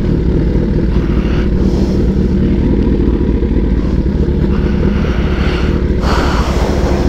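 Kawasaki ZX-10R's inline-four running at low speed through a very loud 4-into-1 aftermarket exhaust with no dB killer fitted, a steady deep drone with a louder rush of noise about six seconds in.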